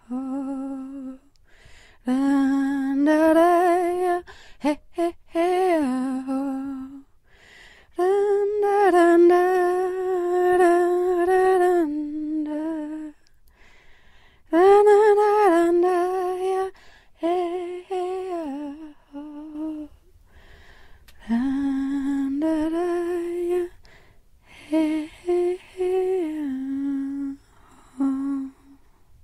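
A single voice humming a slow, wordless melody in phrases, with long held notes and short pauses between them.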